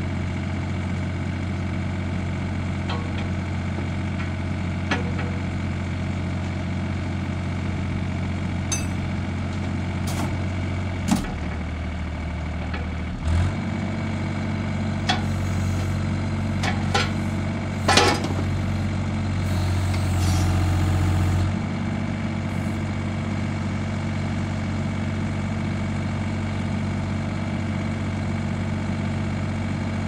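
Wacker Neuson 38Z3 mini excavator's diesel engine idling steadily. Its note drops around eleven seconds in and picks up again a couple of seconds later as the hydraulics are worked, with a few sharp metallic clanks from the bucket quick coupler releasing, the loudest near the middle.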